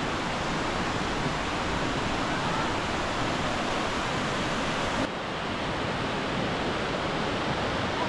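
Steady rushing of a mountain stream's water over rocks, a dense even hiss. About five seconds in the sound shifts abruptly, a little softer and duller.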